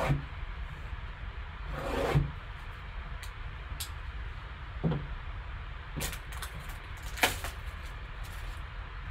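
A folding knife slitting the plastic shrink wrap on a trading-card hobby box, with two brief scraping swishes, followed by scattered light clicks and taps of cardboard and plastic as the box lid is worked loose and lifted off. A steady low hum runs underneath.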